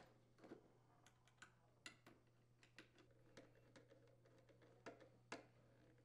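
Near silence with faint, scattered clicks and ticks as a screw and a nut driver are handled against the metal water inlet valve bracket, over a faint steady low hum.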